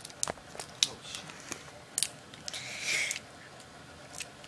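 Crinkles and sharp clicks of a small wrapper packet being bitten and pulled at with fingers as someone struggles to tear it open, with a longer rustling hiss about two and a half seconds in.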